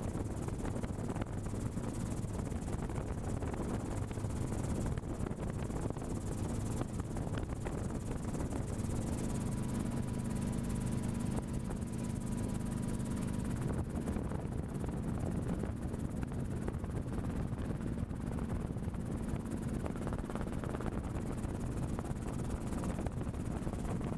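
Steady engine and rotor drone of a small helicopter in flight, heard from inside the cabin.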